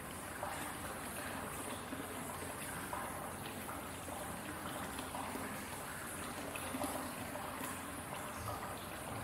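Hot-spring water trickling steadily into an onsen bath: a constant flowing splash with small drips over it.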